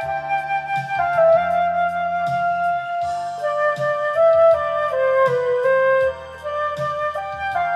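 Flute playing a legato melody of held notes over a karaoke MIDI backing track with bass and drums; the melody steps down about five seconds in and climbs back near the end.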